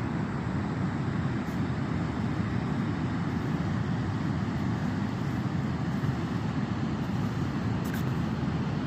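Beach ambience: a steady low rumble of sea and wind with no distinct events.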